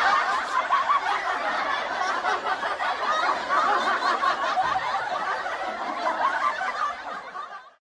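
A crowd of people laughing together, many voices overlapping, dying away near the end.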